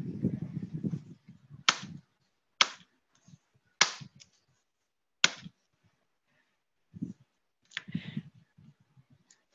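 Handling noise at a work table: low bumps and rustle, and five sharp clicks or taps spaced about a second apart.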